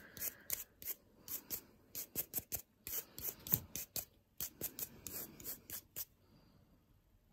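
Quick, light sweeping strokes of a nail dust brush clearing filing dust off freshly filed nails, about three strokes a second, stopping about six seconds in.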